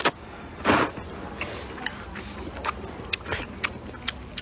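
A loud slurp of sweet potato glass noodles about a second in, then wet chewing with many short, sharp mouth clicks and smacks. A steady high insect sound runs underneath.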